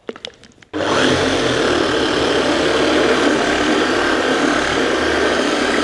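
Dynabrade DB8 forced-rotation dual-action polisher running a foam cutting pad over car paint, a steady machine noise that starts abruptly under a second in after a few light clicks.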